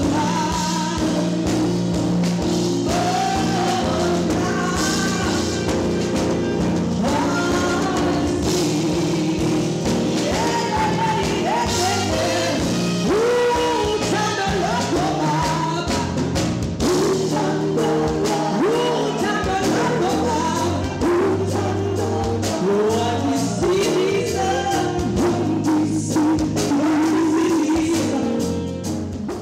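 A woman singing a gospel song live, sliding and running between notes over keyboard and band backing. The music fades out at the very end.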